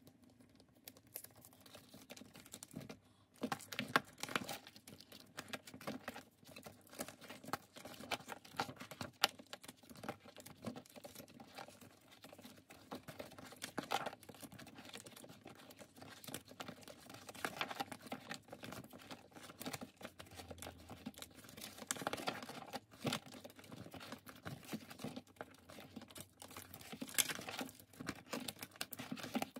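Plastic binder pages and photocard sleeves being handled and turned: soft crinkling rustles and small clicks throughout, with a few sharper taps.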